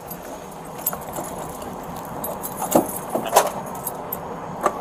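Keys jangling, with a handful of sharp clicks as a patrol car's rear door handle is worked.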